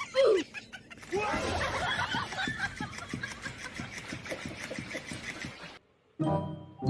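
People laughing and snickering for several seconds, with a short falling cry just before, then an abrupt cut.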